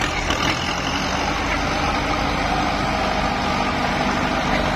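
Kubota M8540 tractor's four-cylinder diesel engine running steadily.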